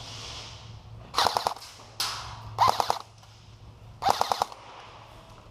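Airsoft guns firing in short rapid bursts: three bursts of several shots each, with a single shot about two seconds in.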